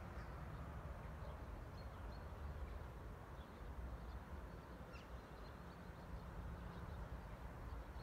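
Quiet open-air ambience: a steady low rumble with a few faint, brief bird calls.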